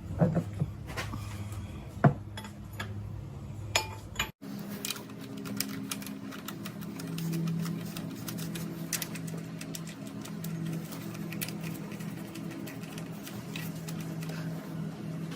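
Scattered sharp metallic clicks and taps of hand tools and engine parts being handled during timing-chain work, over a steady low hum. The hum changes pitch after a sudden break about four seconds in.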